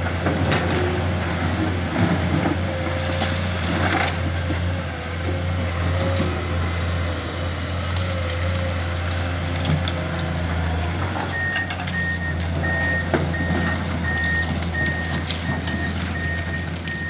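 Komatsu PC210 hydraulic excavator's diesel engine running steadily with a steady whine, with a few knocks of rock in the first seconds. About eleven seconds in, its travel alarm starts beeping, about two beeps a second, as the machine tracks over the rock bed.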